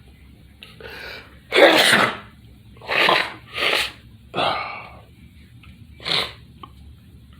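A person sneezing repeatedly, about five sneezes a second or so apart, the first the loudest. The sneezer puts the fit down to allergies.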